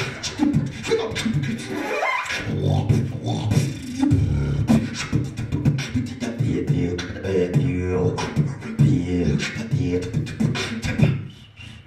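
A man beatboxing into a handheld microphone cupped at his mouth: a dense, even groove of mouth-made drum hits over low hummed bass notes. It stops about eleven seconds in.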